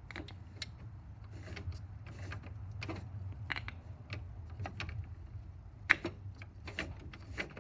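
Irregular clicks and light knocks of an old valve radio's chassis and parts being handled and worked on, with one sharper click about six seconds in, over a steady low hum.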